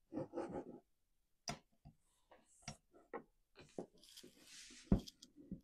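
Socket wrench working the flywheel nut of a Stihl MS250 chainsaw: scattered faint metal clicks and ticks as the socket is seated and turned, then one sharp crack near the end as the nut breaks loose.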